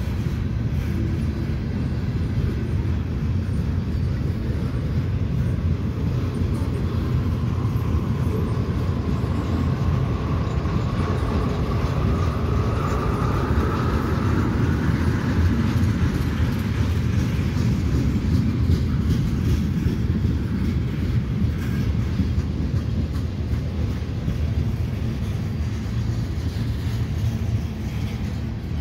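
Freight cars of a CSX mixed manifest train rolling past at close range, a steady rumble of wheels on rail. A faint whine rises in pitch about a third of the way through, then fades.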